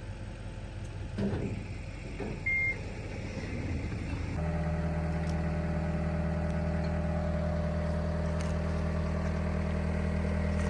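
A short electronic beep a couple of seconds in, then about four seconds in the John Deere 325G skid steer's diesel engine comes on and runs steadily.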